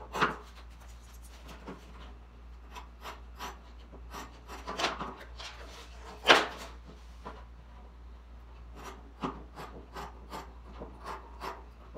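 Scissors cutting through fabric on a wooden table: irregular snips, with the blades scraping along the wood. One louder, sharp stroke comes about six seconds in.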